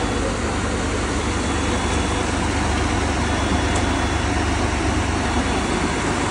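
Steady rumble of a motor vehicle's engine and road noise, even and unbroken.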